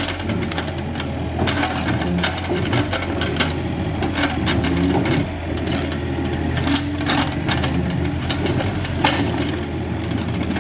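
Excavator engine running steadily with a low hum, while the bucket works the ground with irregular clanks and scrapes.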